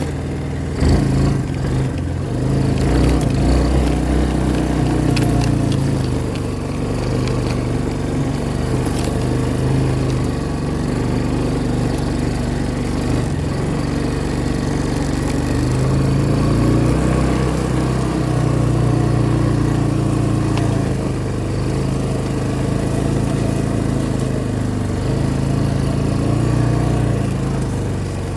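Small engine of an off-road vehicle running while driving, its pitch rising and falling with the throttle, with a few knocks about a second in.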